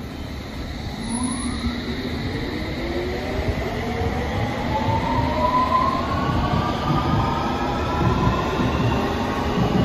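London Underground S Stock train pulling away from the platform: the electric traction motors whine in several tones that rise steadily in pitch as it accelerates, over a low rumble from the wheels.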